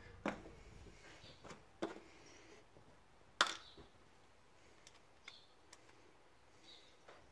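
Scattered light clicks and knocks of small parts and tools being handled on a workbench, with one sharper knock about three and a half seconds in.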